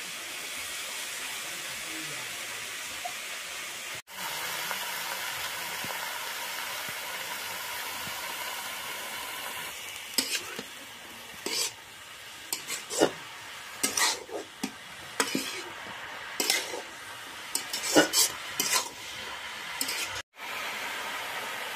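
Sliced mushrooms sizzling steadily as they fry in a metal kadai. From about halfway through, a spatula stirs them, scraping and clicking sharply against the pan.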